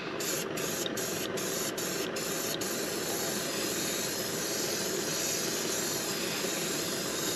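Krylon Fusion All-in-One aerosol spray paint can spraying gloss white paint and primer, a steady hiss. The hiss breaks briefly several times in the first couple of seconds, then runs on unbroken.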